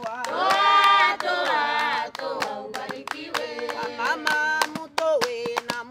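A group clapping hands in a steady beat, about three to four claps a second, with women singing unaccompanied in Swahili. A loud, high voice sings out over the clapping in the first two seconds.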